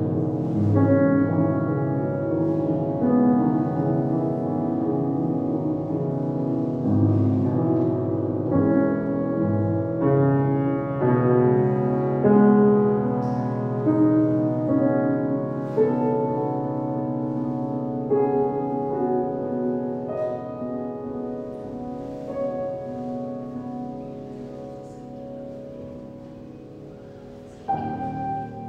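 Grand piano played solo: chords and deep bass notes struck and left to ring, the playing growing gradually softer in the second half until a loud new chord is struck near the end.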